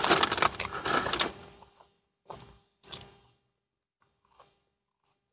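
Close-miked eating noises: rustling, crackling handling and mouth sounds as a French fry is taken and eaten, dying away after about a second and a half, then two short soft sounds.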